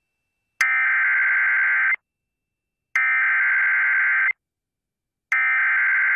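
Emergency Alert System SAME header: three identical bursts of screechy digital data tones, each about a second and a third long and about a second apart. These bursts encode the start of a new alert, here a severe thunderstorm warning.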